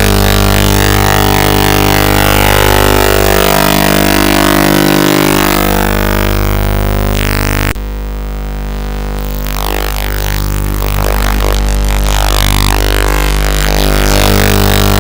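Loud, distorted music with a steady droning bass. About eight seconds in the high end suddenly drops out and the sound thins, then it builds back to full.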